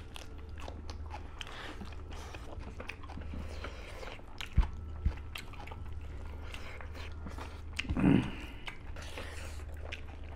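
Close-miked chewing and crunching of vegetables and rice eaten by hand, with many small wet mouth clicks over a steady low hum. Two dull thumps come a little before the middle, and a short louder sound comes about eight seconds in.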